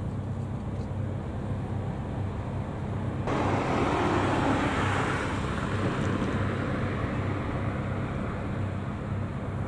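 Road vehicle noise: an engine hums steadily under traffic sound. About a third of the way in, a louder rushing noise starts suddenly and slowly dies away, like a vehicle going past or a burst of road and wind noise.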